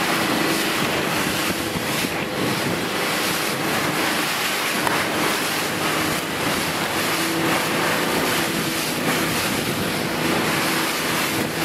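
Small boat's motor running steadily underway at speed, with water rushing past the hull and wind buffeting the microphone.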